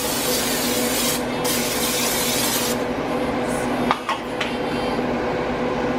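Aerosol cooking spray hissing in two bursts of about a second each as it coats a metal loaf pan, followed a little later by a couple of light clicks.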